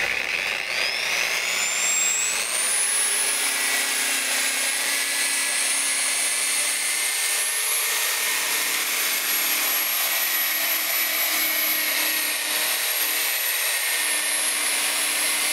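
Electric angle grinder with a wool buffing pad spinning up, its whine rising in pitch over the first two seconds or so, then running steadily at high speed. The pad is buffing a fine polishing compound into painted truck-cab panels: the second, faster pass that takes out swirl marks.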